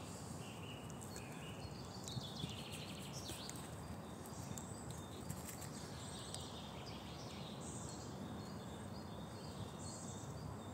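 Quiet woodland ambience: small birds chirp now and then over a steady low background noise. Faint rustles and taps come from a Eurasian red squirrel scrabbling in dry leaf litter and on a stump laid with nuts.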